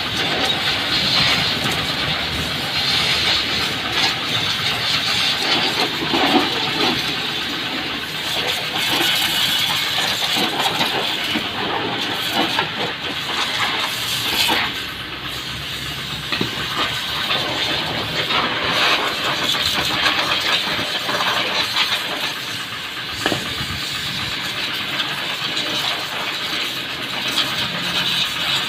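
An engine running steadily, with uneven surges in loudness.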